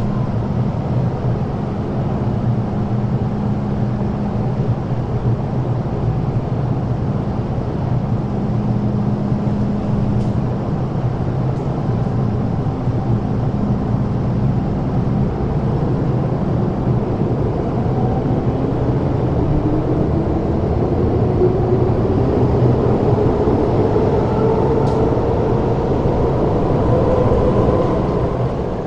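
MTR Island Line electric train (M-train) pulling out of the underground platform: a steady rumble and hum, then from about halfway through a whine from the traction motors that rises steadily in pitch as the train gathers speed.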